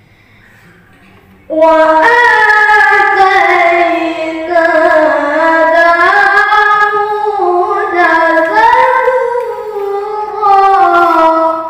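Qur'an recitation (tilawah) in the melodic competition style: a single high voice sings long, held, ornamented phrases. It comes in suddenly about a second and a half in, with brief breaks between phrases.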